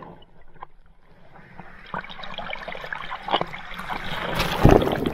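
Shallow beach water lapping and fizzing right at the microphone, growing as a small wave washes over it, with the loudest splash about four and a half seconds in.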